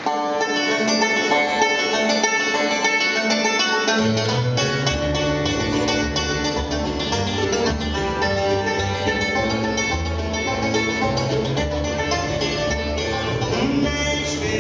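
Bluegrass band playing an instrumental intro on banjo, fiddle, mandolin and acoustic guitar. Upright bass notes come in about four seconds in.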